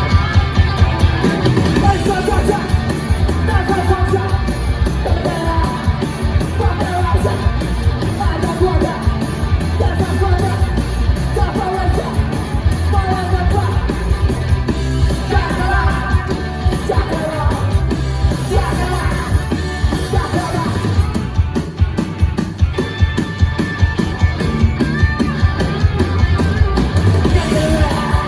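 Punk rock band playing live: a fast, steady drum beat under a full band, with a singer shouting the vocals.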